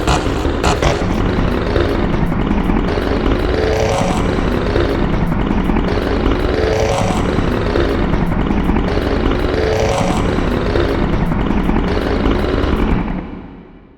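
Reversed sound effects: a loud, dense noise like an engine or aircraft, with a sweep that rises and falls about every three seconds. It fades out near the end.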